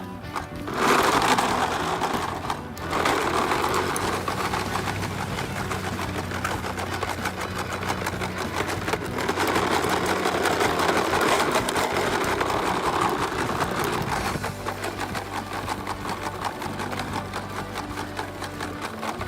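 Small electric motor and gears running steadily with a fast, fine clicking, as from a battery-powered ride-on toy being driven.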